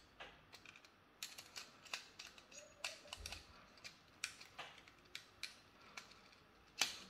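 Faint, irregular small clicks and taps of a screwdriver and a plastic wall-switch body being handled while a wire is tightened into a terminal screw. One sharper click comes near the end.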